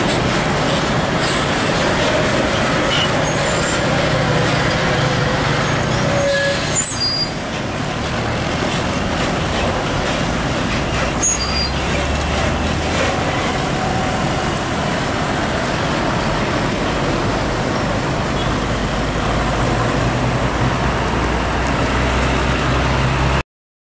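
Heavy diesel trucks, container tractor-trailers and a cargo truck, driving past close by with steady engine rumble and road noise. The engine rumble deepens midway as a truck pulls by, and the sound cuts off abruptly near the end.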